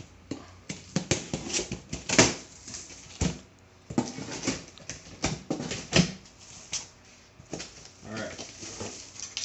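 A large knife slicing through packing tape on a cardboard box, then the cardboard flaps pulled open and the packing inside rustled: an irregular run of rips, scrapes and crackles, the loudest about two seconds and six seconds in.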